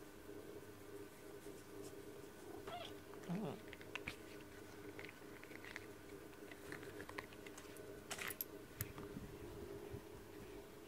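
Siamese-tabby cat giving one short, falling meow about three seconds in while being stroked, over a faint steady hum, with a few faint clicks and rustles near the end.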